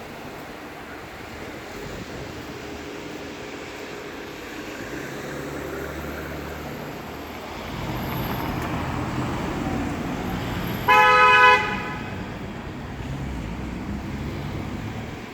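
A vehicle horn honks once, a single steady note lasting under a second, over street traffic noise with a vehicle passing.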